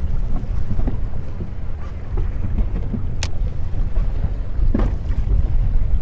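Wind buffeting the microphone on a small boat as a steady low rumble, with one sharp click about three seconds in.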